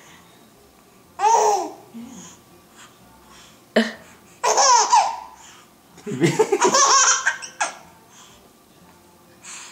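Baby laughing in several short, high-pitched bursts of giggles, with quiet pauses between them.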